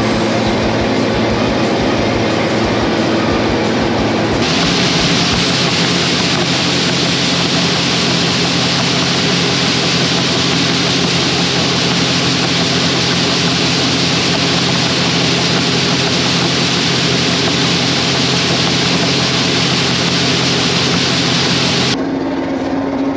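Steady engine and machinery noise: a constant hum under a loud, even hiss. The sound changes abruptly about four seconds in and again near the end.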